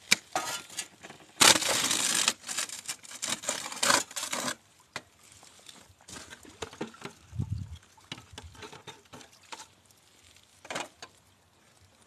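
Metal parts of a gold-prospecting high banker sluice being handled: clattering, scraping and tapping, with a loud rushing scrape lasting about a second near the start, then sparser clicks and taps.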